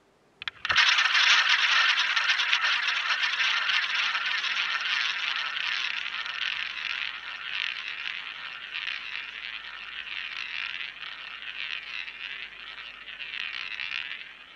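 A roulette ball is launched by hand into the wheel's ball track. A couple of sharp clicks about half a second in are followed by the ball rolling around the track with a continuous rushing rattle that slowly grows quieter as it loses speed.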